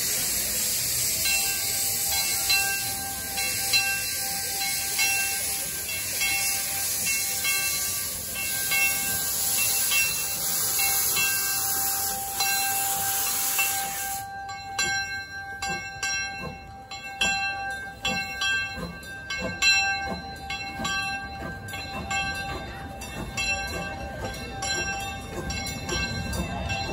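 Small steam locomotive passing close by, steam hissing loudly around its cylinders until the hiss cuts off abruptly about halfway through; then the irregular clicking and clanking of the tender and coach wheels rolling over the rail joints.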